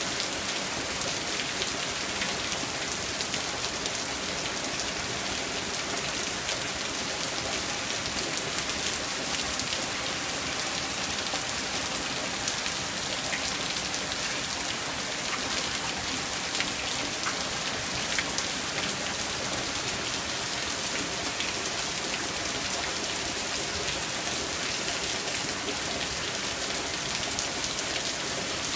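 Heavy rain falling steadily on wet asphalt and paving, a dense even patter of drops splashing on the surfaces.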